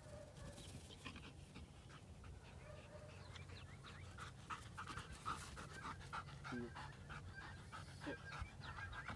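A black retriever dog panting, fairly faint.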